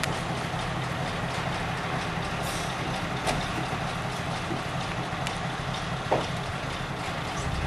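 Fire engine's diesel engine idling with a steady low hum, with a few short sharp clicks and knocks over it.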